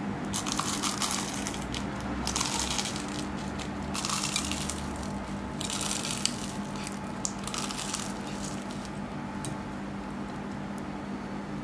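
Crisp baked phyllo börek rolls crackling and crunching as a wooden spatula slides under them and lifts them from a metal baking tray, in repeated bursts every second or two, over a steady low hum.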